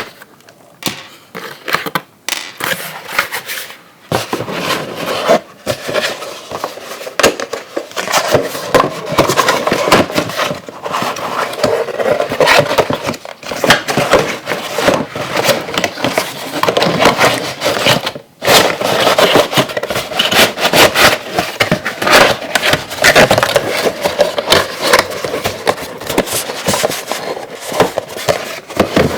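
Plastic and cardboard packaging being handled, with continuous irregular crinkling and crackling and many sharp clicks. It pauses briefly a few times, once for about half a second near the two-thirds mark.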